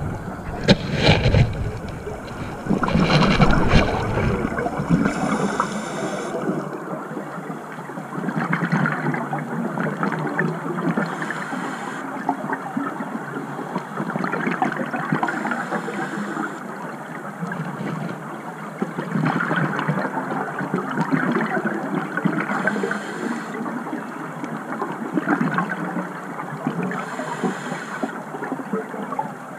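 Scuba diver's regulator breathing heard underwater: a hiss on each inhale and a bubbling gurgle on each exhale, repeating about every five to six seconds. In the first few seconds there is a low rumble and a few knocks.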